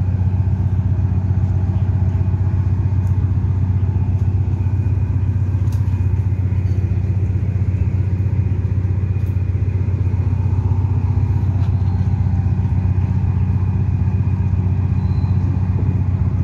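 Steady low hum of the docked OceanJet 88 fast craft's engine idling, an even drone that never changes pitch.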